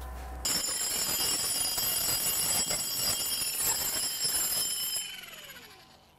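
Handheld power grinder running against a firebrick, shaping a brick for a pizza-oven archway, with a steady high whine. About five seconds in it is switched off and spins down, its pitch falling as it fades.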